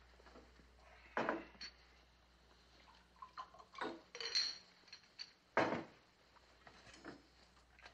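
Faint, scattered clinks and knocks of glassware and bottles being handled at a drinks cabinet, one clink ringing briefly; the loudest knock comes a little past halfway.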